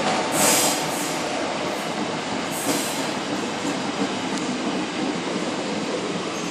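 Sydney S-set electric suburban train pulling away from a platform, heard from inside the carriage: a steady rumble of wheels on track, with a few short, high hissing bursts in the first three seconds.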